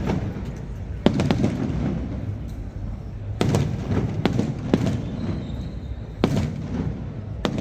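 Aerial fireworks bursting overhead: sharp bangs every second or two, a few coming in quick pairs, over a continuous low rumble.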